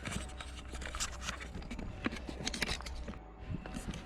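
Footsteps walking along a forest dirt trail: irregular steps, several a second, over a steady low hum.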